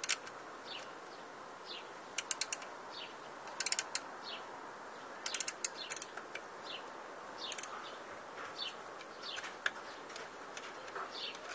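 Birds chirping, many short falling chirps, with several quick runs of four or five sharp clicks.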